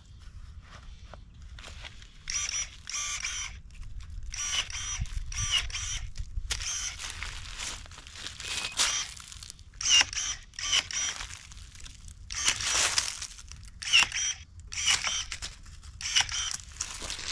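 Hand pruning shears snipping through dormant grapevine canes: sharp clicks and snaps in quick clusters of two to four, some with a short metallic ring.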